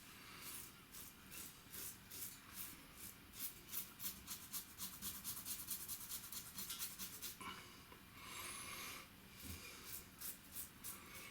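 Merkur 34C HD safety razor with a Wilkinson Sword blade scraping through stubble over a coconut-oil lather, in quick short strokes several a second, with a short break about eight seconds in.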